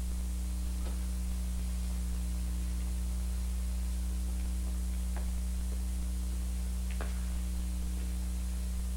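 Steady low electrical hum with a light hiss from an old film soundtrack, broken only by a few faint clicks.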